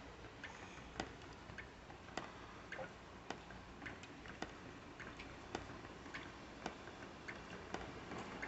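Water drops from a roof leak falling faintly, the strongest about once a second at an even pace, with smaller drips between.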